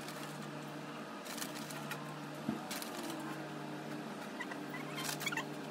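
Outdoor ambience with faint birds chirping, over a steady low hum.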